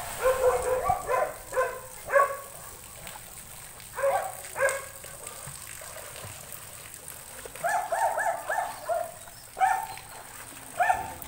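A dog barking in short, high yaps, in runs of several barks with pauses between.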